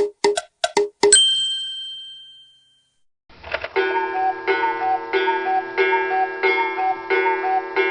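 Background music and sound effects: a few quick ticks, then a bell-like ding about a second in that rings out and fades. After a short pause, music with a repeating plucked-note pattern starts about three seconds in.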